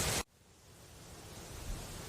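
Steady hiss of wind rustling through bamboo leaves. It cuts off abruptly about a quarter of a second in, then fades back up to a slightly quieter steady hiss.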